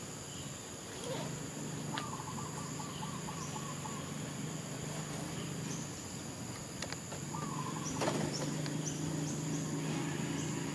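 Forest ambience: a steady high-pitched insect drone, with two short warbling animal calls about two and seven seconds in and a few sharp clicks, the loudest about eight seconds in.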